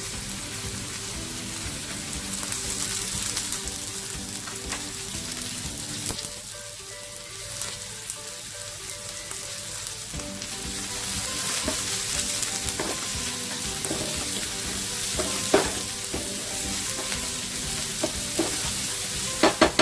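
Onions, ginger, garlic and freshly added curry leaves frying in vegetable oil in a pan: a steady sizzle, with a spoon stirring and clicking against the pan now and then.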